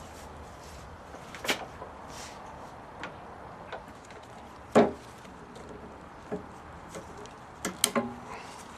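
Scattered clicks and knocks of hand tools and parts being handled, with one louder knock about five seconds in and a quick run of clicks near the end.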